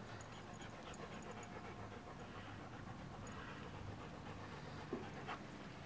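A dog panting close by, with two short soft knocks near the end.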